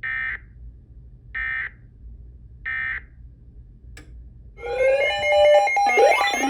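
Emergency Alert System end-of-message code: three short identical bursts of data tones about 1.4 s apart, which close the warning. A click follows, then synthesizer music with rising, sweeping tones starts about four and a half seconds in and is the loudest part.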